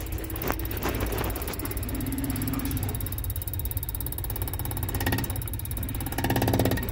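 Toyota 2KD Denso common-rail diesel injector on a test bench, pulsed by an electronic injector driver: a steady rapid mechanical buzzing. There are a couple of sharp clicks about half a second and a second in.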